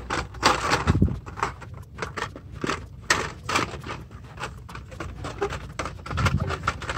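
Blister-carded die-cast toy cars being handled and shuffled on store pegs: irregular plastic and cardboard clicks, clacks and rustles.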